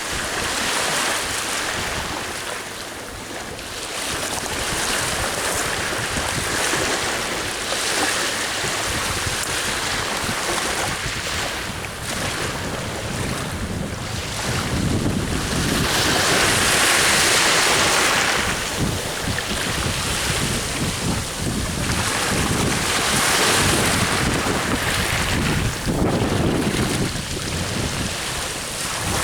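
Sea waves breaking and washing on the shore in repeated surges, loudest about halfway through, with wind buffeting the microphone.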